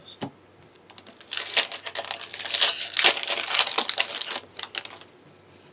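Foil booster-pack wrapper crinkling and crackling as it is handled and torn open, from about a second in until about four and a half seconds in.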